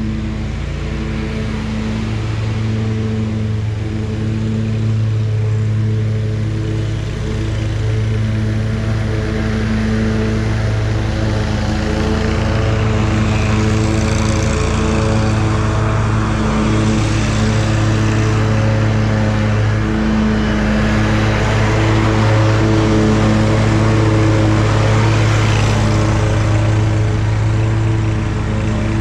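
Zero-turn lawn mower engine running at a steady speed, an even hum, with a rushing noise that swells in the middle and eases toward the end.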